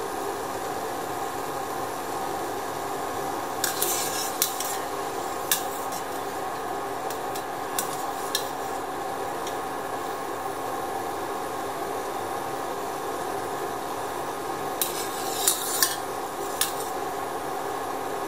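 Water boiling steadily in a stainless steel pot, with a few sharp clinks of a wire mesh skimmer against the pot and bowl as cooked sago balls are lifted out, in two clusters about four seconds in and again near the end.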